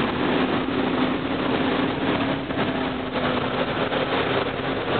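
Land Cruiser 4WD engine droning steadily under a constant rush of noise as the vehicle drives through floodwater.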